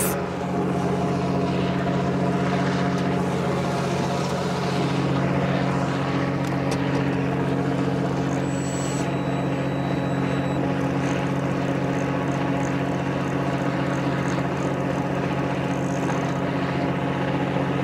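Fishing boat's engine running steadily, a constant low drone with no change in pitch.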